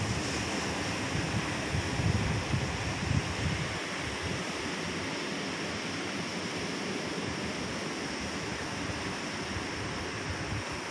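Surf breaking on the outer reef, a steady wash of sea noise. Wind buffets the microphone in the first few seconds, then eases.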